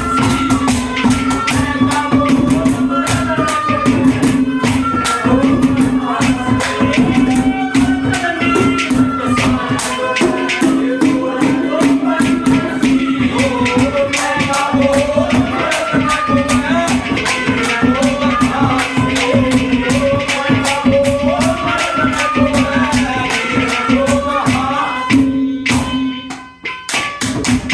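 Instrumental ragni folk music: a melody winding over a steady held drone note, driven by fast, dense jingling and tapping percussion. The music drops out briefly near the end, then comes back in.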